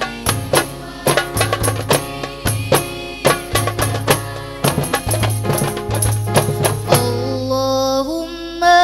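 Group of voices singing a devotional song in unison to a quick beat on rebana frame drums. About seven seconds in, the drums stop and the voices hold a long note that steps upward in pitch.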